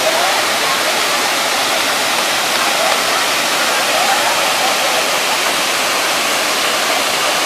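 Lampi Waterfall's water rushing: a steady, even noise that does not let up.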